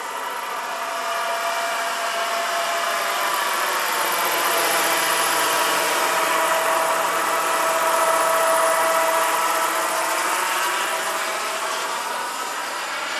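Turbine engine and twin rotors of a large RC scale model Boeing Vertol CH-46 tandem-rotor helicopter in flight, passing by: a steady whine and rotor noise that grow louder to a peak about eight seconds in, then fade.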